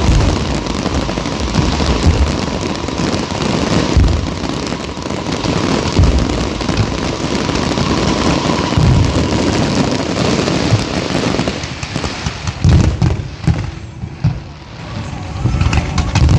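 Fireworks display: dense crackling and popping over repeated deep booms. After about eleven seconds the crackle thins out and separate booms stand out.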